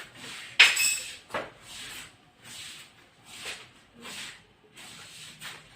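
Kitchen handling sounds at the stove: a sharp clack about half a second in, then a series of short rubbing and scraping noises.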